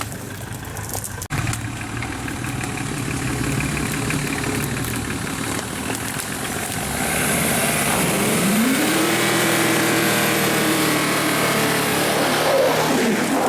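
Off-road 4x4's engine running, then revving up about two-thirds of the way through and holding at high revs.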